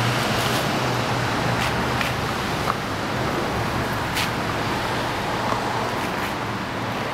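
Steady outdoor traffic noise with a low engine hum that fades out about three seconds in, and a few faint ticks.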